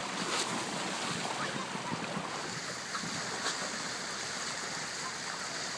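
Steady rush of water along a sailboat's hull as it moves, with wind on the microphone and a few light splashes from dolphins breaking the surface at the bow.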